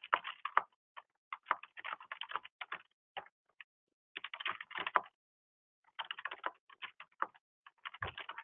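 Typing on a computer keyboard: bursts of quick clicks with short pauses between them.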